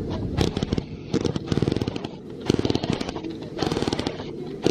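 Hand scrub brushes rasping across an elephant's wrinkled hide in repeated strokes, roughly one burst of scrubbing a second.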